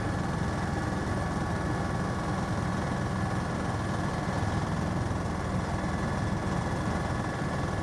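Helicopter cabin noise in cruising flight: a steady low rotor and engine drone with faint, constant high whines above it.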